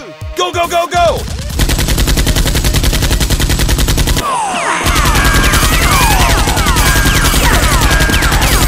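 Rapid automatic gunfire sound effects: a fast, even rattle of shots that starts about a second and a half in, breaks off briefly about four seconds in, then resumes with high sliding whistle-like tones over it.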